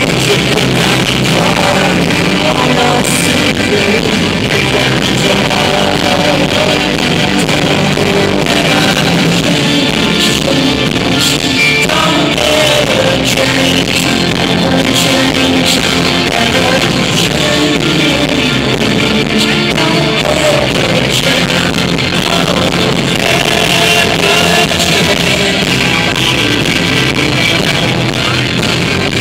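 Live rock band playing amplified music with electric guitars, recorded from the crowd in an arena.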